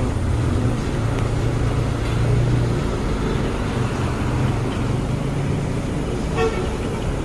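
Steady low rumble of a road vehicle's engine and traffic, with a short higher-pitched tone near the end.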